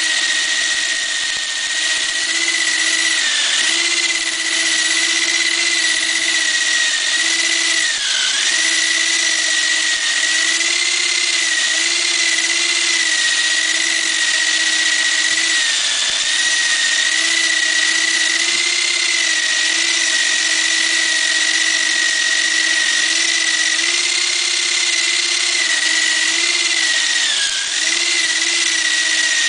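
Electric drill spinning a homemade chicken plucker (a PVC cap fitted with rubber bungee-cord fingers), its motor whining steadily. The pitch dips briefly about four times, as the bird is pressed against the spinning cords and loads the motor.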